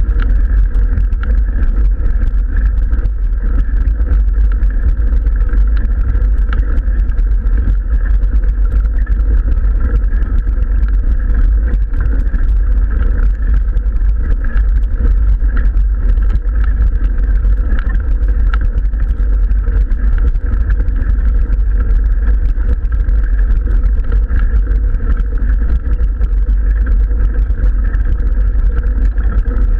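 Wind buffeting an action camera's microphone on a mountain bike climb: a steady, loud low rumble with no break.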